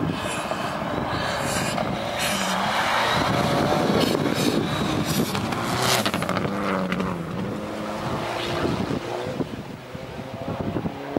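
Rally car driven hard past at close range, its engine revving up and down through gear changes with several sharp cracks. It is loudest about four to six seconds in, then fades as it drives away.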